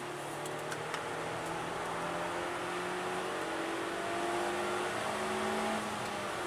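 Suzuki Swift Sport's four-cylinder engine accelerating, heard inside the cabin, its note rising slowly in pitch and growing louder, then breaking off and dropping a little before the end, as at an upshift.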